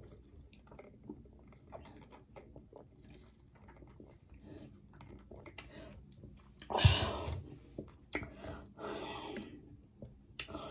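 Soft sipping of soda through a straw, followed by lip and mouth sounds of tasting. A few louder breathy mouth noises come about seven seconds in.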